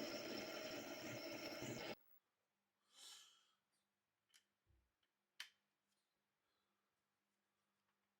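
A workshop machine runs steadily with a whine, then the sound cuts off abruptly about two seconds in. Near silence follows, with a soft breath-like swell and a few light clicks.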